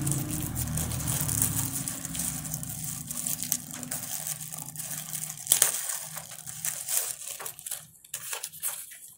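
Plastic packaging crinkling and rustling as a wallet is unwrapped by hand, with a run of sharp crackles and snaps, the loudest about five and a half seconds in. A low hum underneath fades out over the first few seconds.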